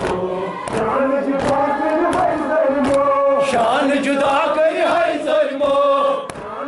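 A group of men chanting a Kashmiri noha, a Muharram lament, in unison. Sharp chest-beating slaps (matam) keep time at an even beat of roughly three every two seconds.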